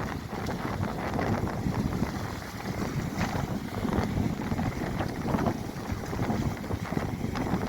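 Storm wind buffeting the microphone over a rough sea: a steady rushing noise with sudden gusts.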